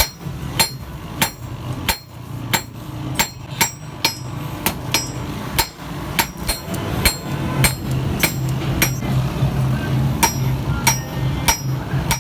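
Blacksmith's hammer striking steel on an anvil, forging a chisel: a steady rhythm of about two blows a second, each with a short metallic ring.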